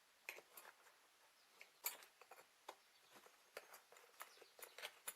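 Faint, irregular clicks and light taps of small hand tools being handled and set into their carrying case.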